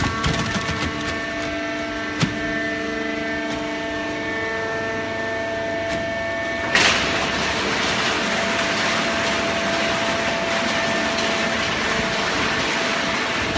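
Hydraulic waste paper baler running: a steady machine hum made of several tones, with a sharp knock about two seconds in. About seven seconds in there is a sudden loud clunk, and from then on a steady rushing noise sits over a single remaining tone.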